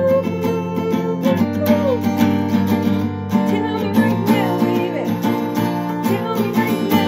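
Acoustic guitar strummed in steady chords, with a capo on the neck, and a voice singing a melody along with it.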